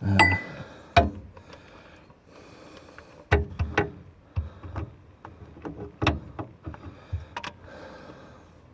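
Irregular metal clinks and knocks of hand tools working on an excavator's diesel engine, the first with a brief ring.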